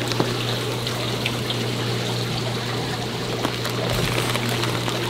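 Steady trickle of running water from the store's aquarium systems, over a constant low pump hum, with a few light crinkles of plastic fish bags being handled.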